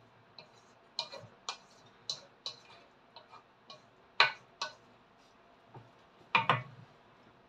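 A dozen or so short clicks and light knocks, spaced unevenly; the loudest is about four seconds in, and a quick double knock comes about six and a half seconds in.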